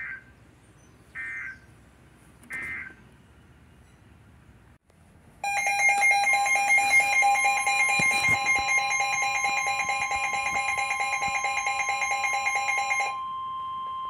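Emergency Alert System header: three short warbling data bursts about a second apart, then the harsh two-tone EAS attention signal starting about five seconds in. About a second later a steady single-pitch alert tone joins it and carries on alone after the two-tone signal stops near the end.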